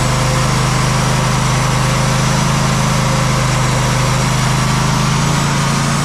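Band sawmill's engine running steadily, its note shifting slightly near the end.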